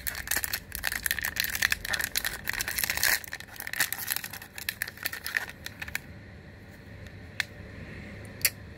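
The plastic wrapper of a baseball card pack being torn open and crinkled by hand: a dense crackling for about six seconds, then two sharp clicks near the end.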